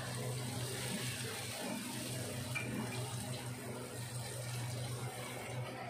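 Barbecue sauce of ketchup and soy sauce sizzling in a hot pan on a gas burner, a steady hiss with a low hum underneath.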